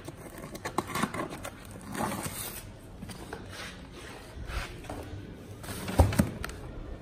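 Grocery bags being handled, a foil-lined thermal bag and paper bags: irregular rustling and crinkling, with a heavy thump about six seconds in.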